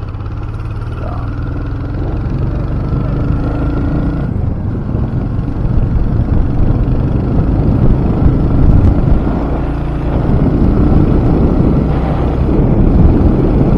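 Royal Enfield Hunter 350's single-cylinder engine running while the bike is ridden along the road, mixed with rushing wind noise on the microphone. It grows louder over the first several seconds.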